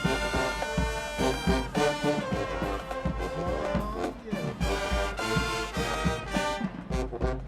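HBCU marching band playing: a full brass section, trumpets and trombones, held chords over a steady bass-drum and percussion beat.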